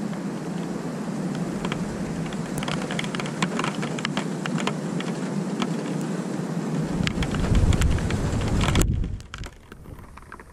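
Steady rain falling, with drops ticking sharply close by. About seven seconds in, a deep rumble swells underneath and becomes the loudest part, then the whole sound drops off suddenly near the end.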